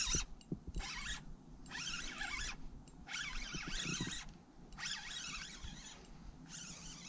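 Daiwa BG 3500 spinning reel being cranked in repeated short bursts of about a second each, roughly every one and a half seconds, as line is wound in between rod lifts.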